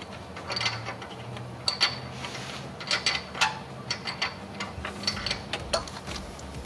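Hand ratchet clicking in short, irregular runs as it works an oxygen-sensor socket, backing the old oxygen sensor out of the exhaust.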